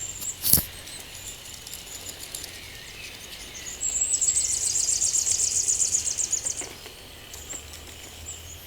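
Rural outdoor ambience with a steady high background hiss and birds calling. A sharp click comes about half a second in, and a rapid, high-pitched pulsing trill runs for about three seconds in the middle.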